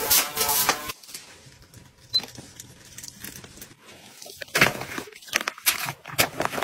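Clear plastic wrapping crinkling and rustling in short irregular bursts as it is handled around a puppy, the bursts closer together near the end.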